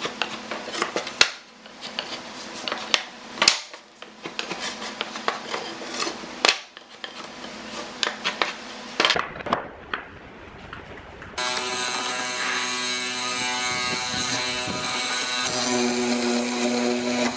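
Clicks and scrapes of a marking gauge being set and drawn along pine boards, with a few sharp knocks of tools on the bench. About eleven seconds in, this gives way to the steady whine of a hollow-chisel mortiser's electric motor as the chisel cuts a square mortise into the pine.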